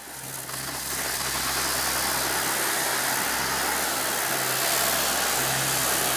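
Orbital sander running against the epoxy-coated steel hull of a narrowboat, a steady whirring hiss that builds up over the first second and then holds level. It is sanding back the old epoxy and algae before fresh coats of epoxy go on.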